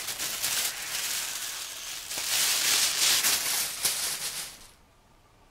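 Volcano vaporizer's clear plastic balloon bag crinkling and rustling as it is handled and drawn from. The noise swells twice and stops about four and a half seconds in.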